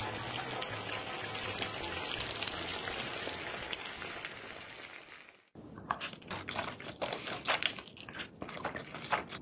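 Close-miked wet eating sounds of sauce-coated seafood: a dense, steady wet crackle and drip, then after a brief break about five seconds in, a run of sharp, irregular crunching and smacking clicks.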